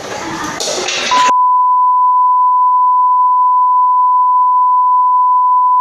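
A steady, single-pitched electronic beep, a pure sine tone held for nearly five seconds that cuts off abruptly. It comes in about a second in, just as a burst of children's shouting cuts off.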